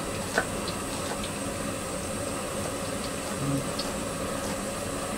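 Steady hiss from the stove under the wok, with a few light clicks and taps of a steel bowl as onion pieces are mixed in it by hand.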